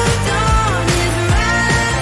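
Background pop music with a steady beat and a gliding melody line over bass.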